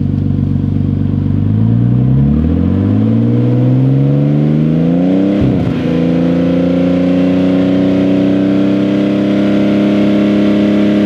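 Car engine with a modified exhaust revved up from idle over about four seconds and then held steady at around 4,000 rpm for a static exhaust noise (decibel) test, with a brief wobble in the revs as it settles.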